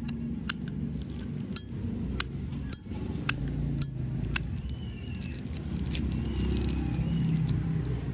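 Zippo lighter's hinged lid flipped open and snapped shut repeatedly: about seven sharp metallic clicks with a loud, ringing ping, stopping about four and a half seconds in. A low traffic rumble runs underneath.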